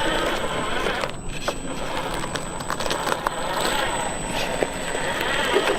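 Electric remote-control toy vehicle running, its motor and gears whirring, with scattered clicks and knocks.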